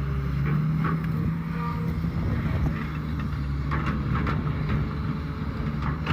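Diesel engine of a Caterpillar excavator running steadily, with a few short knocks over it.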